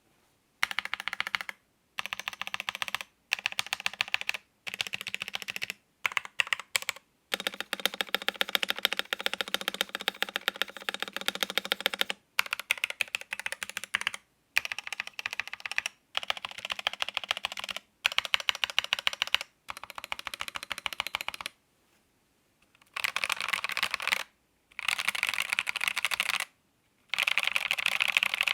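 Typing on an Epomaker TH66 mechanical keyboard with Epomaker Flamingo switches: fast runs of keystrokes in bursts of a second or two, separated by short pauses, with one longer unbroken run about a third of the way in.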